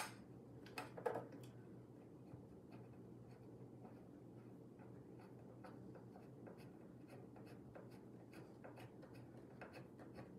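Faint, irregular clicks and scratches of screws being turned in by hand into the top of a guitar amplifier cabinet, with two sharper clicks in the first second or so.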